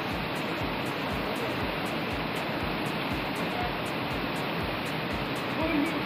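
Fast-flowing river water rushing steadily, a strong current in full spate.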